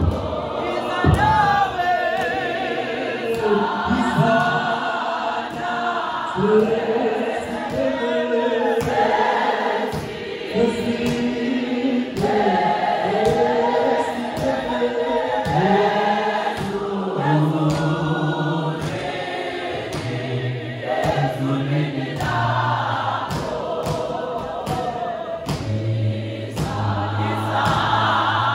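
Large church congregation singing a hymn together, many voices in harmony, with low men's voices holding notes in the second half.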